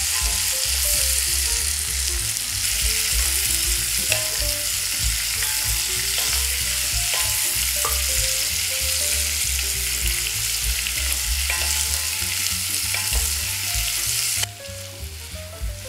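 Sliced onions sizzling in melted butter in a cast-iron pot while a wooden spatula stirs them. The sizzle drops suddenly to a quieter level near the end.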